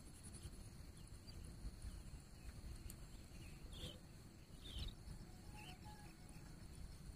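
Faint, short bird calls, a few scattered high chirps around the middle, over a low steady rumble.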